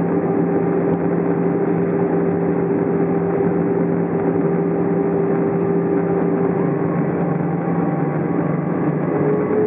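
Airbus A320 cabin noise from a window seat over the wing on approach: steady jet engine drone over the rush of airflow. The engine tone steps slightly lower about two-thirds of the way through, and a higher tone comes in near the end.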